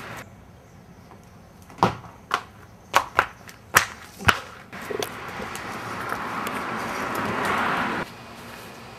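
Six sharp footsteps on hard pavement, about half a second apart. Then a rushing noise swells and cuts off suddenly.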